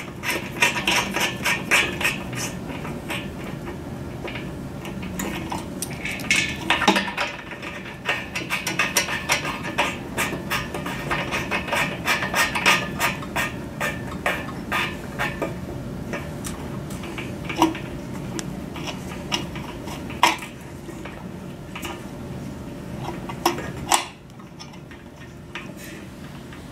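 Small metallic clicks, taps and rattles of coaxial cable connectors being handled and screwed onto the threaded connectors of a dish antenna feed. The clicks are dense at first, thin out in the second half, and a few sharper knocks stand out near the end.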